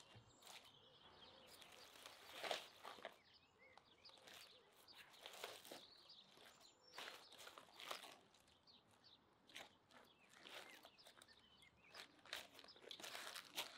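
Baking paper and aluminium foil crinkling in scattered short bursts as they are handled, with a knife cutting into a roasted ox hoof. Quiet.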